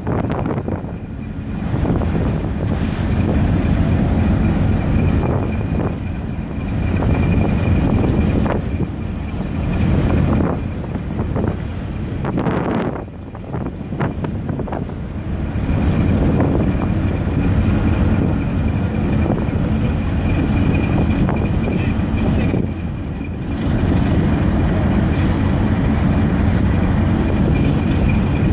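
Wind buffeting the microphone over the low, steady drone of a ship under way, with a faint steady high-pitched tone; the wind eases briefly a couple of times.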